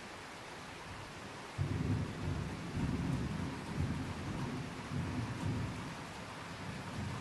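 Steady rain hiss, joined about a second and a half in by a sudden, loud low rumble of thunder that goes on rising and falling.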